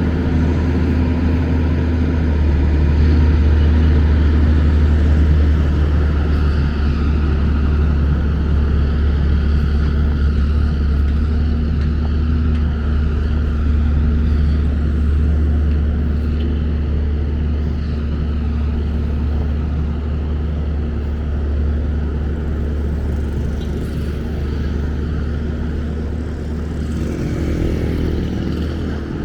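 Steady city street noise of passing traffic with a heavy low rumble.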